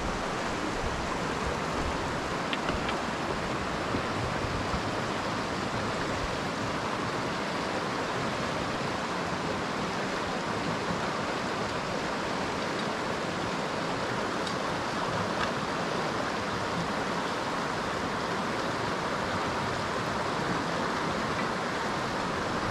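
Mountain river rushing over rocks and small rapids: a steady, even rush of water.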